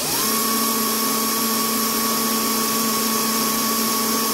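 Electric hand drill spinning up to full speed and running steadily with a high whine, driving a freshly sharpened 3 mm twist bit on a test in steel.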